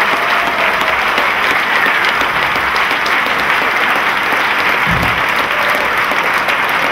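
Large audience applauding steadily, with a brief low thump about five seconds in.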